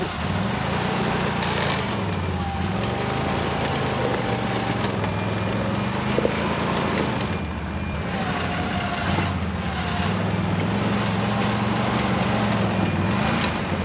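ATV engine running and revving up and down as the quad is worked over rocks, with a fainter high whine that comes and goes.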